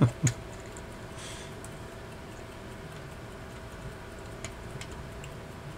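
The Mappin and Webb carriage clock's movement ticking quietly, with a short knock of handling on the brass case right at the start and a few faint clicks of the screwdriver later.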